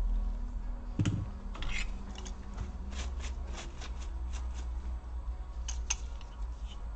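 Hands working on the laptop's cooling parts: a knock about a second in, then scattered light clicks, taps and rubbing of small plastic and metal parts, over a low steady hum.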